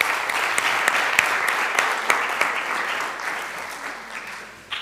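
Audience applauding, many hands clapping at once, loud at first and thinning out toward the end.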